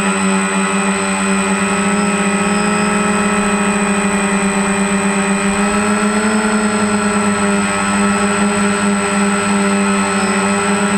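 A drone's motors and propellers hum steadily at a high, even pitch, heard up close from a camera mounted on the airframe. The pitch rises slightly about six seconds in, then settles back.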